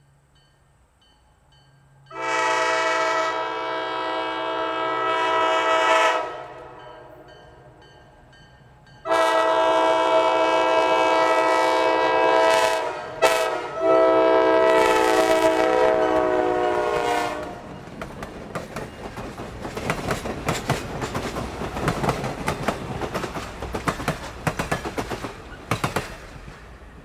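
EMD FP9A locomotive's five-chime Nathan K5LA air horn sounding the grade-crossing signal: long, long, short, long. Then the train's wheels clatter over the rail joints in a rapid clickety-clack with a rumble as the passenger cars pass close by.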